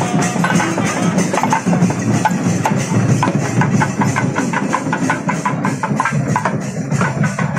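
Percussion music: drums and hand percussion playing a fast, even beat.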